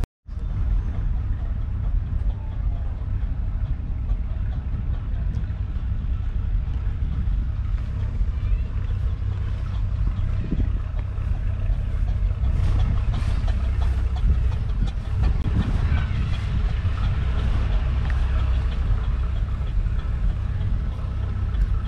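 A 2022 Valtra T235 Active tractor's 7.4-litre six-cylinder diesel engine running steadily.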